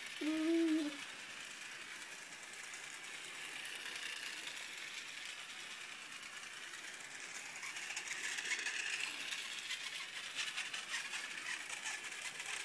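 Battery-powered toy train running on its track: a steady small-motor whirr with light clicking and rattling from the wheels, busier in the second half. A short voice sounds at the very start.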